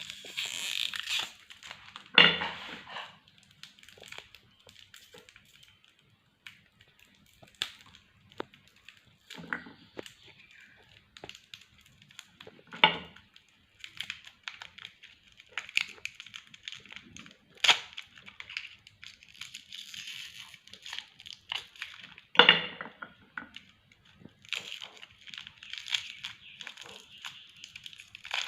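Hard lollipop candy being crushed in a meat grinder: an irregular crunching and crackling, with a sharp loud crack every few seconds as a piece breaks.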